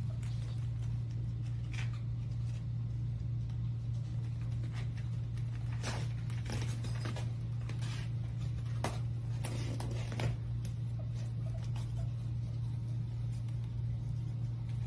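A steady low hum, with scattered soft scratches and rustles as a kitten clambers on the mesh and fabric walls of a pop-up playpen, most of them between about six and eleven seconds in.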